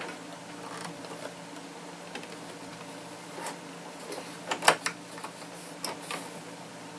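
Electronic sewing machine stitching a hem with a twin needle, its motor humming steadily. A few sharp clicks, loudest about four and a half seconds in, come over the hum.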